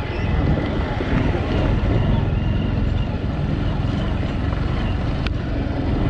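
Motorcycle riding over a rough dirt road: a steady engine drone and road rumble, with one sharp click about five seconds in.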